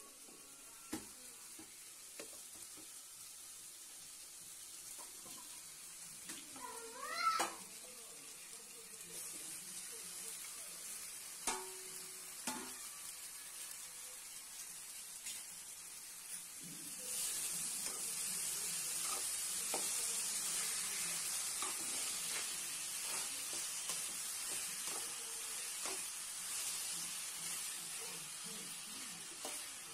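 Masala-coated chicken sizzling in a steel pan while being stirred, with a few light knocks of the spoon against the pan; the sizzle grows louder from about halfway on. A cat meows once, about seven seconds in.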